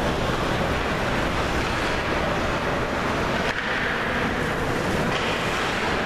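Ice rink ambience during an ice hockey game: a steady rushing noise with no distinct stick or puck hits and no voices standing out.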